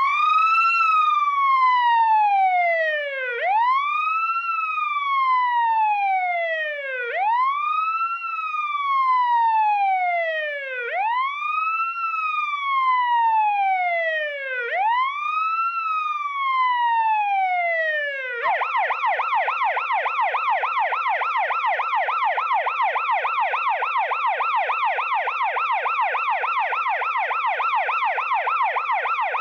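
Emergency vehicle siren, police or ambulance type, sounding a slow wail that rises quickly and falls slowly, about every three and a half seconds. A little past the middle it switches to a rapid yelp, warbling up and down about three times a second.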